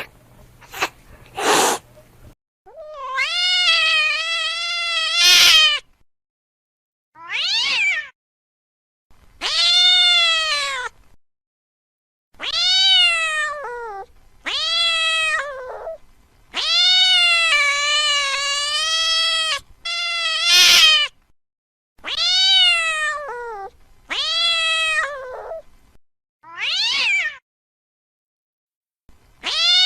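An angry domestic cat yowling: about ten drawn-out, wavering meows that rise and fall in pitch, some held for two or three seconds, with short pauses between them. Two short sharp sounds come in the first couple of seconds, before the yowling starts.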